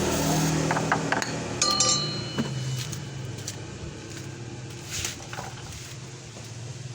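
Metal brake parts and tools clinking while a disc brake caliper is worked on, with a few sharp clicks and one ringing metallic clink about one and a half seconds in, over a steady low hum.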